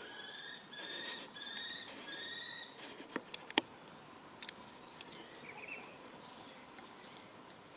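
Young common kestrel giving four drawn-out, slightly rising calls in a row, followed by a few sharp clicks, the loudest about three and a half seconds in, and a faint short trill near the end.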